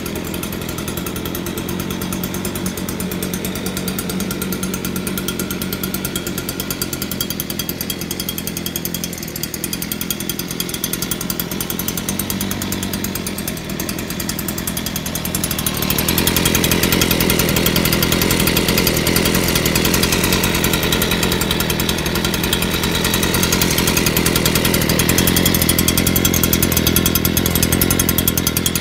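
Stihl BG 56 leaf blower's small two-stroke engine running steadily, growing louder and brighter about halfway through.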